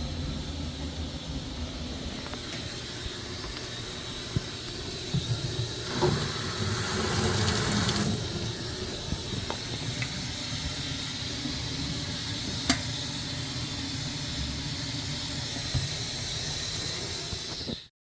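Water running through the newly connected supply line with a steady hiss, louder for about two seconds in the middle, with a few faint clicks.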